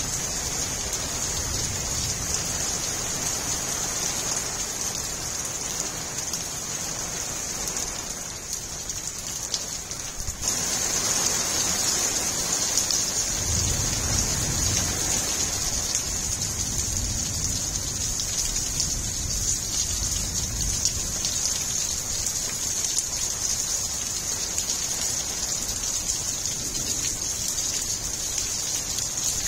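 Heavy monsoon rain falling steadily on gravel, puddles and plants, a constant hiss. About ten seconds in, the sound changes abruptly and gets louder.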